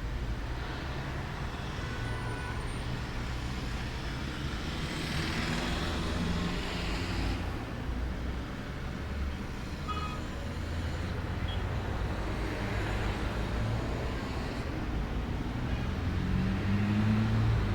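Outdoor ambience dominated by a steady low rumble of road traffic, with an engine rising in pitch near the end as a vehicle passes. A few brief faint high chirps sound about halfway through.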